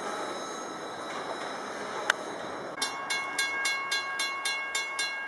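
Freight cars rolling slowly along the rails. About three seconds in, a grade-crossing warning bell starts ringing in rapid, even strokes, about four a second.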